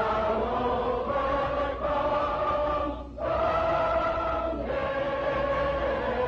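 A choir singing slow, long-held notes in phrases, with a short break about three seconds in.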